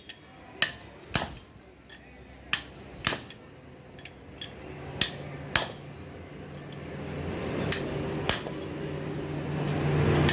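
Hammer blows on metal knocking a broken bearing off an axle, struck in pairs about every two and a half seconds. A steady motor hum comes in a few seconds in and grows louder.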